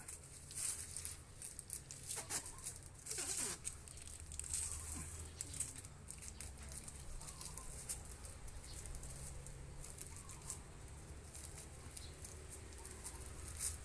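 Faint rustling and scraping of a plastic tying strip as it is pulled taut and knotted around a bamboo stake, in irregular short bursts of handling noise.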